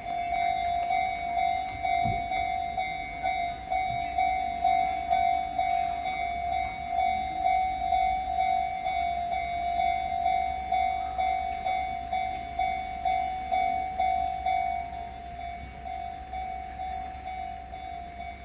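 Railway level-crossing warning bell ringing, an electronic tone repeated evenly about one and a half times a second, growing quieter in the last few seconds. It signals a train approaching the crossing.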